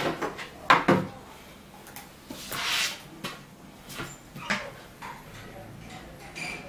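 Flat-pack drawer panels being handled and laid out by hand: a few separate knocks and clatters, the loudest about a second in, with a short sliding scrape just before the middle and smaller knocks later.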